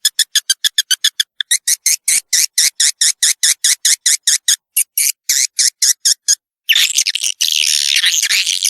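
Swiftlet lure-call recording: a fast, even train of short, sharp high chirps, about six to eight a second. Near the end it breaks off for a moment and gives way to a dense, continuous twittering of many swiftlet calls.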